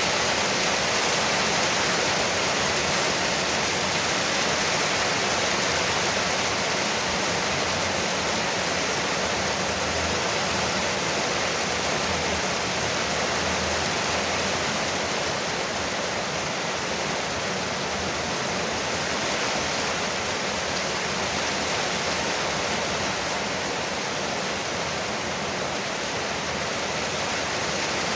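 Heavy rain pouring onto a veranda roof, a dense, steady rush of drops.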